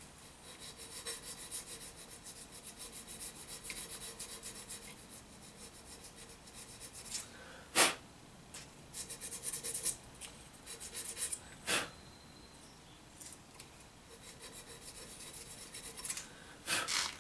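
Folded 400-grit sandpaper rubbed back and forth in a freshly cut notch in an aluminium AR-15 lower receiver, smoothing out the Dremel cut. The strokes come in quick runs of rasping rubs, broken by a couple of sharper knocks midway.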